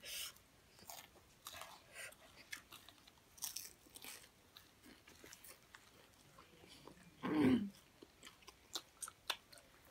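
Close-miked chewing and crunching of mouthfuls of pennywort leaves and roasted small fish, a scatter of small crisp clicks. About seven seconds in, one eater gives a short hum.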